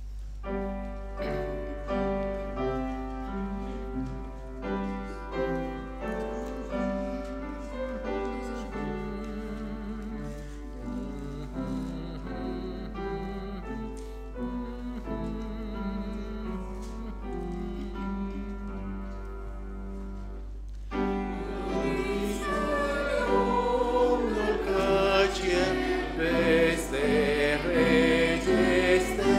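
Hymn: an instrumental introduction of held chords for about twenty seconds, then a group of voices comes in singing the hymn with the accompaniment, noticeably louder.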